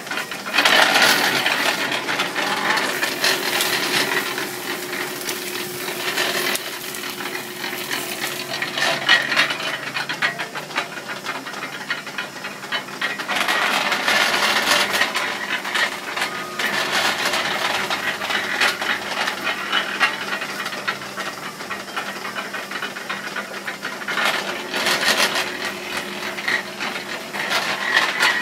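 Sugarcane juice mill (moenda) running, its iron gears and rollers clattering and rattling as stalks of cane are crushed. The clatter swells in three louder stretches.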